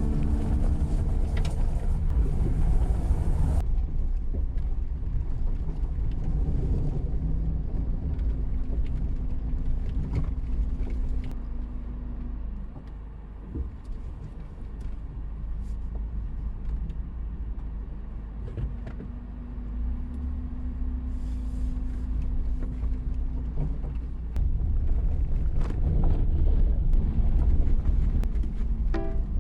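Suzuki Every Wagon kei van being driven: a steady low road rumble with the engine's drone, which eases off about twelve seconds in and builds again near the end, with scattered small knocks and rattles.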